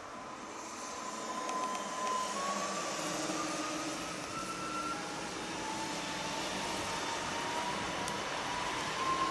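Pesa Elf 2 (36WEa) electric multiple unit pulling away, its electric traction whine rising in pitch in several steps as it gathers speed, over a rushing noise from the moving train that grows louder about a second in.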